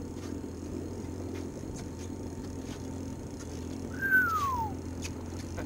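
Outboard motor idling steadily in neutral. About four seconds in comes a single short whistle-like call that falls in pitch.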